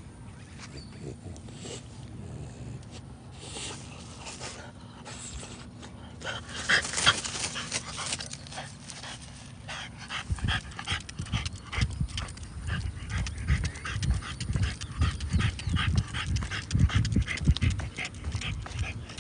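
French bulldog breathing hard: sniffing in short bursts with its nose in the grass in the first half, then fast panting from about ten seconds in as it walks.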